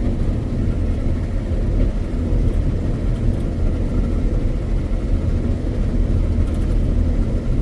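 Combine harvester running steadily while reaping wheat, a constant low rumble with no change in speed.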